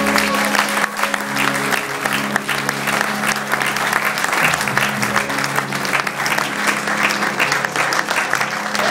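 Audience applauding, dense and continuous, while a live band holds sustained low notes underneath.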